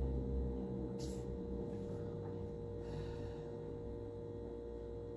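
Quiet room tone: a faint steady hum over low background noise, with a soft brief rustle about a second in.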